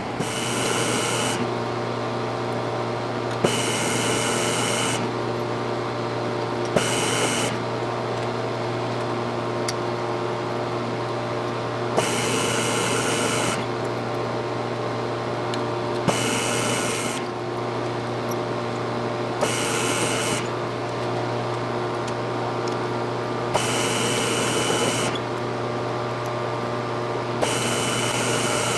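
A machine tool running steadily with a constant low motor hum. Every few seconds there is a click followed by a burst of higher hissing noise lasting about a second.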